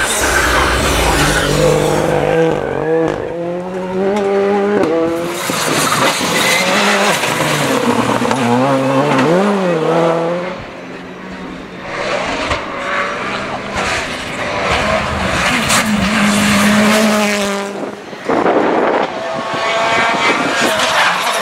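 Rally cars passing one after another at full speed, among them a Ford Fiesta R5 and a Hyundai i20 R5: engines revving hard, with the pitch rising and dropping through gear changes and lifts. The sound jumps abruptly from one car to the next several times.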